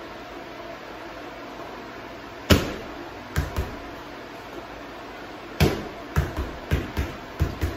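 Gloved punches landing on a hanging heavy bag: a single hit about two and a half seconds in, a quick double about a second later, then a rapid run of about seven hits from about halfway through.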